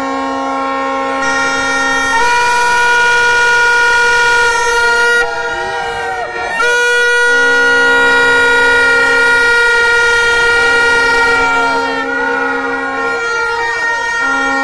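A crowd blowing many hand-held horns: several steady held notes at different pitches overlap, with single horns dropping out and coming back in every second or two.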